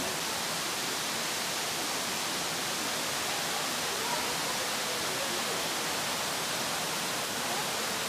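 Waterfall pouring over a rock ledge into a plunge pool: a steady, even rush of falling water.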